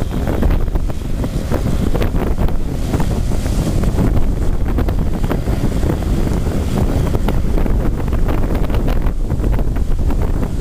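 Strong wind buffeting the microphone over the steady run of an Amphibex amphibious dredge pumping slurry out through its discharge pipe, with the rush of the slurry jet splashing down into the sea.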